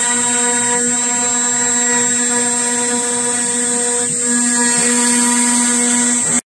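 Spindle of a 40x60 CNC milling machine running steadily with a high whine while milling wood. It cuts off suddenly near the end.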